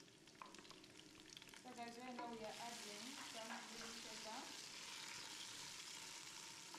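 Chopped onions and green pepper sizzling in hot oil in a pot, stirred and scraped with a wooden spatula; the sizzle grows stronger about two and a half seconds in.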